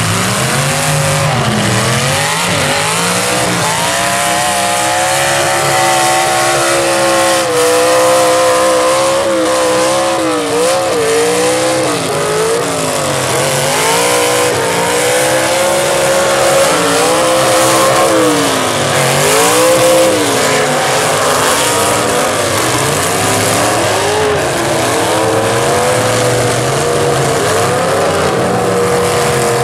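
Engines of several full-size demolition derby cars revving hard, their pitch rising and falling again and again as the cars back up and ram each other.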